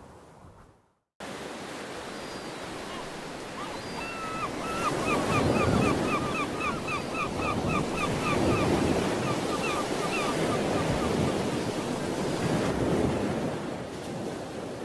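Ocean surf breaking and washing on a shore, swelling and ebbing, starting after a brief gap about a second in. A bird calls over it in a rapid run of short chirps, about four or five a second, from about four seconds in to about eleven seconds in.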